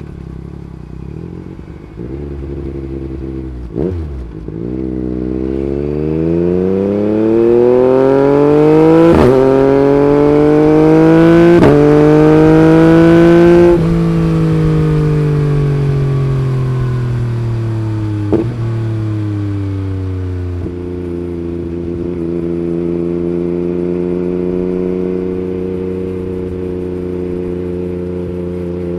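Yamaha MT-09's three-cylinder engine through an Akrapovic Racing Line carbon exhaust, pulling hard with the pitch climbing for several seconds. It is broken by three quick cuts typical of quickshifter upshifts. It then eases off, the pitch sinking slowly as the bike slows, and settles into a steady cruise near the end.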